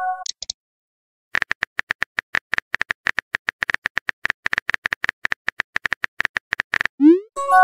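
Texting-app sound effects: a chime dies away, then after a short pause a fast run of phone-keyboard taps, several a second, lasts about five and a half seconds. Near the end a short rising swoosh and a chime mark a message being sent.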